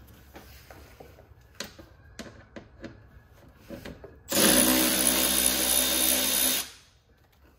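Milwaukee cordless power ratchet running for about two seconds, backing out a T25 Torx bolt, after a few light clicks of handling.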